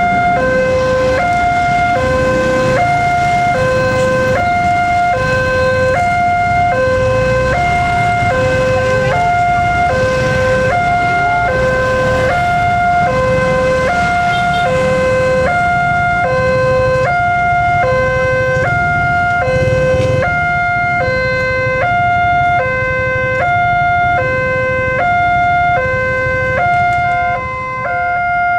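Railway level-crossing warning alarm: an electronic two-tone signal, a lower and a higher tone alternating steadily, about one pair a little over every second. Road traffic, motorbikes and cars, rumbles underneath.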